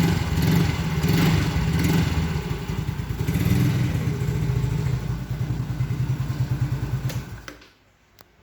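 Yamaha Mio J scooter's single-cylinder four-stroke engine running on a newly fitted cylinder block. It is revved in several short surges, then switched off about seven and a half seconds in, dying away to near silence.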